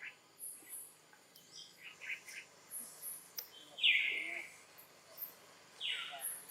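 A series of short, high-pitched animal calls, the loudest two falling in pitch about four and six seconds in, with fainter high chirps between.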